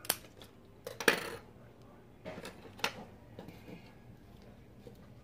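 A few sharp metallic clicks in the first three seconds, the loudest a little over a second in: steel scissors snipping a pothos cutting and then being put down on a wooden tabletop. After that, fainter rustling of leaves and potting soil as the cutting is planted.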